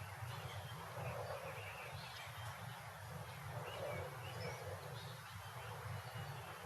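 Suburban street ambience: small birds chirping in short, scattered calls over a steady low rumble of distant traffic.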